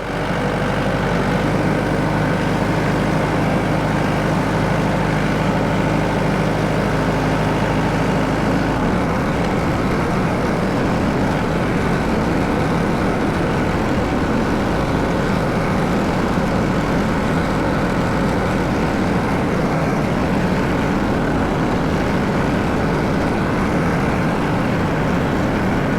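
Farm tractor engine running steadily with a sprayer attached. About nine seconds in, the even engine hum changes to a rougher, noisier running.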